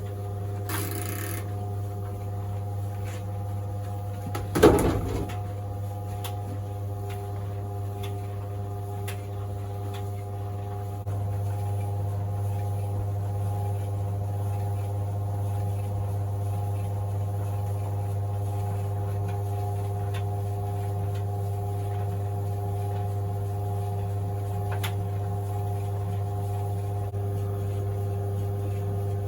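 White Knight CL372 compact tumble dryer running on high heat: a steady motor hum as the drum turns. A single loud thump comes about five seconds in, and the hum gets a little louder about eleven seconds in.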